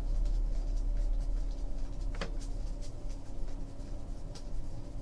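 Trading cards being handled and flipped through, light ticks and brief scrapes over a steady low electrical hum, with one sharper tick about two seconds in.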